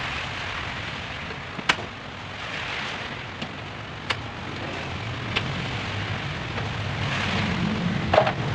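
A car bumper being taken off by hand: four sharp clicks of clips and fasteners over steady background noise, the loudest near the end.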